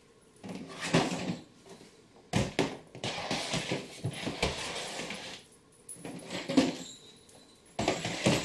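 Rustling and a few knocks of artificial floral stems and plastic storage crates being handled, in uneven bursts with short pauses between.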